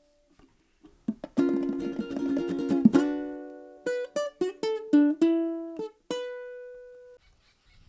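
Plucked-string music: a strummed chord from about a second in, then a short run of single plucked notes, the last one ringing out and fading.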